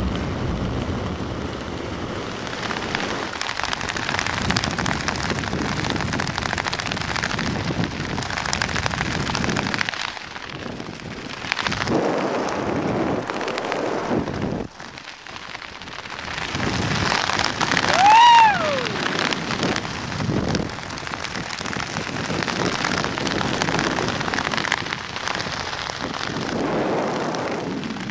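Wind rushing over the microphone of a skydiver's helmet-mounted camera in freefall, a steady noisy rush that dips twice, about ten and fifteen seconds in. About eighteen seconds in, a single short yell rises and falls in pitch over the wind.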